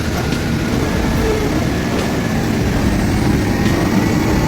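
Heavy logging vehicle's engine running steadily under load.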